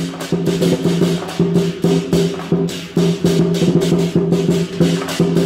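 Temple procession music: fast, dense drum and percussion strokes over held low notes that break off and start again.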